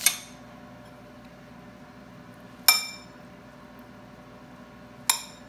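Three sharp clinks of kitchenware knocking against a hard surface, each ringing briefly, spaced about two and a half seconds apart.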